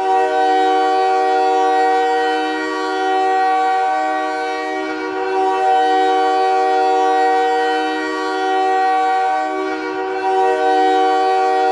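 Montreal Canadiens goal horn sounding one long, steady chord of several tones, swelling and easing slightly in loudness every few seconds.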